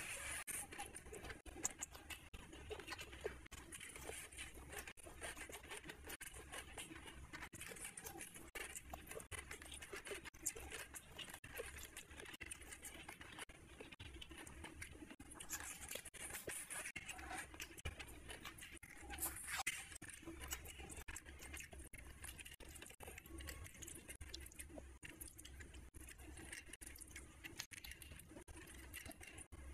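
A person eating rice and chicken curry by hand: wet squishing of fingers mixing rice on the plate, with chewing and lip smacking. Many small wet clicks follow one another throughout.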